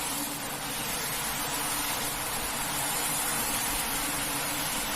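A high-pressure washer spraying water in a steady hiss, with a faint motor hum beneath.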